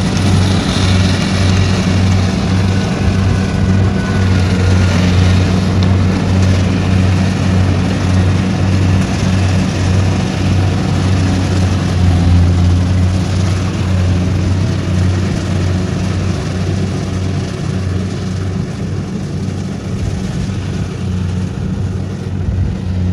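Kubota crawler combine harvester working through ripe rice: its diesel engine and threshing gear run steadily under load as a deep, even drone. The drone grows a little quieter in the last several seconds.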